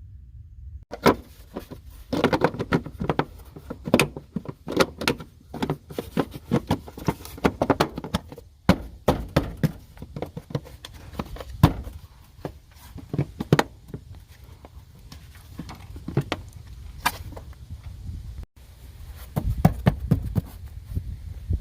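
Irregular clicks, knocks and thuds over a low rumble, broken off abruptly twice.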